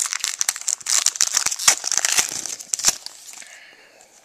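A card pack's wrapper crinkling and tearing as it is opened, a dense run of sharp crackles that fades out about three seconds in.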